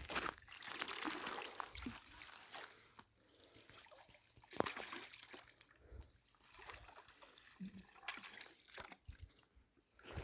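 Water trickling and splashing in short, irregular bursts, with scattered small clicks.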